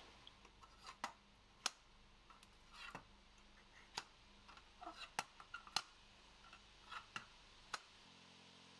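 Light, scattered clicks and taps of plastic Petri dishes of agar being handled and turned over on a lab bench, about eight sharp ticks spread irregularly. A faint steady hum comes in near the end.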